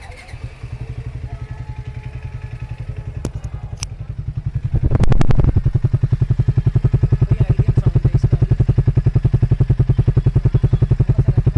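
Triumph Speed T4's 398 cc single-cylinder engine idling in neutral, just started, an even exhaust beat. About five seconds in it swells briefly, then runs steadily louder.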